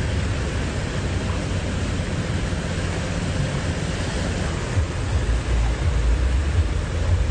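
Steady rushing noise of rain and floodwater running over a street, with an uneven low rumble of wind on the microphone.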